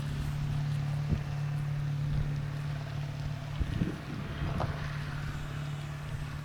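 Electric RC airplane's brushless motor and propeller droning steadily in flight, with wind buffeting the microphone.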